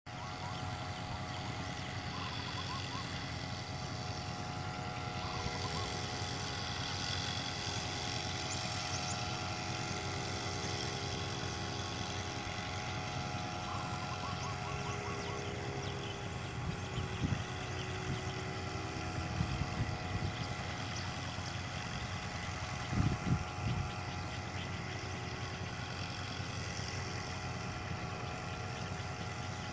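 Small engine of a backpack power sprayer running steadily while it blows a spray mist, a continuous engine drone. A few brief low thumps occur about two-thirds of the way through.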